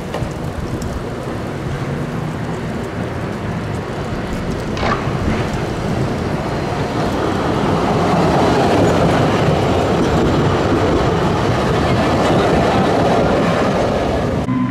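A low-floor city tram passing on street rails: a steady rumble of wheels on track that grows louder as it approaches and is loudest as it goes by, about eight to thirteen seconds in.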